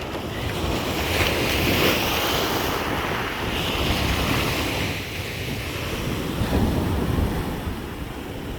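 Black Sea surf: waves washing onto the shore in swells, the first building over the first few seconds and another about two-thirds of the way through, with wind rumbling on the microphone.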